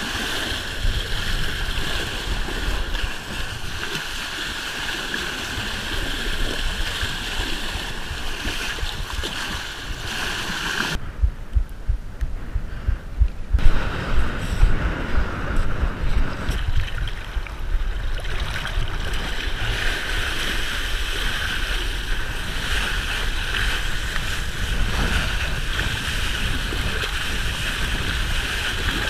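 Water rushing and spraying past a kiteboard at speed, with wind buffeting the GoPro's microphone: a steady loud rush with low thumps of chop against the board. About eleven seconds in, the rush drops away for a couple of seconds to low, muffled buffeting, then builds back.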